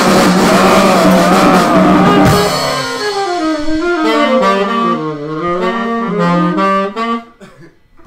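Jazz saxophone playing with a backing band for the first couple of seconds, then alone in a quick run of notes winding up and down. It stops about seven seconds in.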